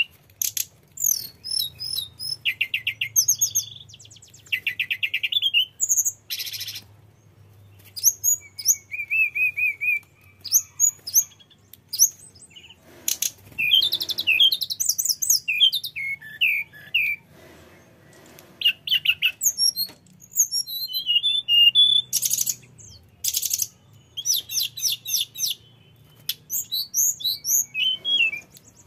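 Hill blue flycatcher singing a long, varied song of clear whistles, trills and fast rattling runs, with short pauses between phrases.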